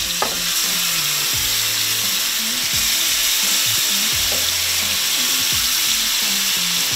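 Seasoned fish portions searing in hot olive oil and clarified butter in a skillet, a steady sizzle of frying.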